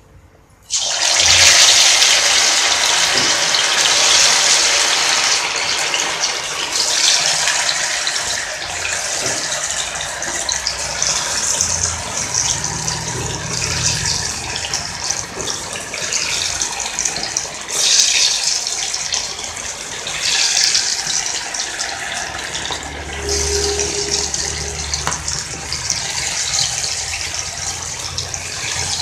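Marinated chicken pieces dropped into hot oil in an iron kadai, the oil breaking into loud, steady sizzling about a second in. The sizzling swells again several times as more pieces go into the oil for deep-frying.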